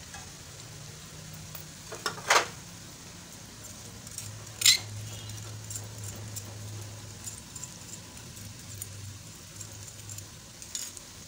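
Sliced onions sizzling steadily in hot oil in a steel karahi as whole spices go in, with two sharp taps, about two seconds in and near five seconds in, from a spoon scraping spices off a plate into the pan.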